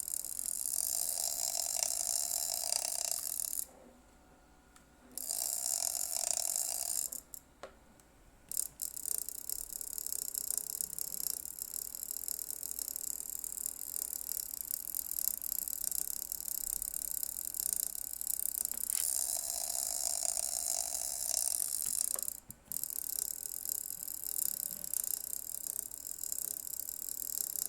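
ViewSonic M1 portable projector making an abnormal high-pitched mechanical noise with a ratchet-like character. It cuts out briefly about four and eight seconds in and again for a moment later on. The owner suspects it may be a fan problem.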